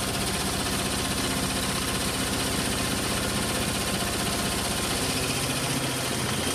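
Hoover Logic washing machine running, a steady motor hum with drum vibration; the lowest rumble eases near the end.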